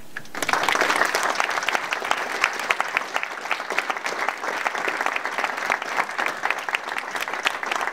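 Audience applauding: many hands clapping together, starting a moment in and going on steadily.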